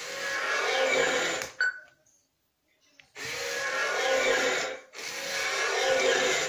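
Toy robot's small electric gear motors whirring as it walks, in runs of about a second and a half with short breaks between them. A click a little before two seconds in, then about a second of near silence before the whirring starts again.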